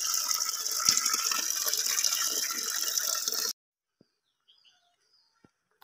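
A stream of water pouring into a steel pot already full of water: a steady splashing hiss that cuts off suddenly about three and a half seconds in, leaving only a few faint ticks and chirps.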